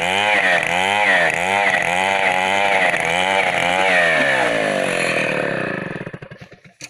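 Stihl MS 070 two-stroke chainsaw revving up and down in quick, even blips, then its pitch falls away and the engine winds down and stops near the end.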